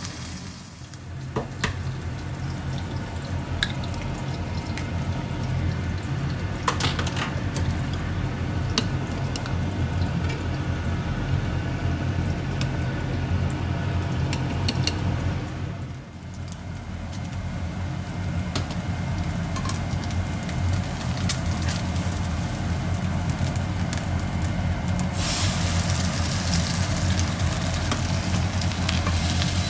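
Food sizzling in a frying pan over a steady low hum. For a stretch in the middle, scattered clicks of chopsticks beating an egg in a glass bowl. Near the end the sizzle grows louder as an egg fries in the pan under the okonomiyaki.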